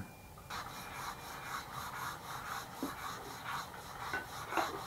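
Rhythmic rubbing and scraping of a steering rack end (inner tie rod) being worked by hand at its joint, about four strokes a second, starting about half a second in.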